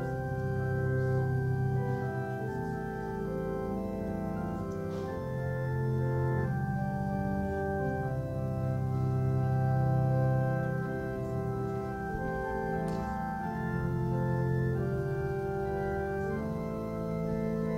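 Church organ playing a slow instrumental piece of sustained chords, the notes changing every second or two.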